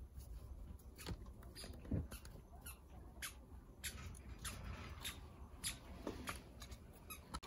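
Small knife peeling a raw potato by hand: short, irregular scraping clicks of the blade cutting the peel, with a few soft knocks.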